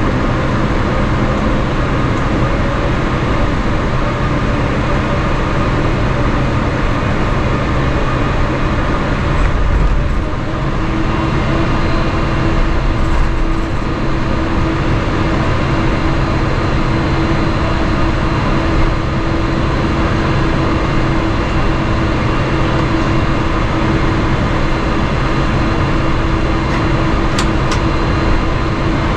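Cabin noise of a Boeing 777-300ER taxiing, heard from a window seat over the wing: the steady rumble of its GE90 engines at taxi power and the gear rolling over the taxiway. There are a couple of low bumps about ten and thirteen seconds in, and a steady hum joins about ten seconds in and holds.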